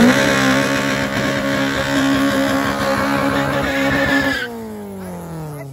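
A car engine held at high revs during a burnout, with the tyres spinning and screeching on the tarmac. About four and a half seconds in, the driver comes off the throttle and the engine note falls away.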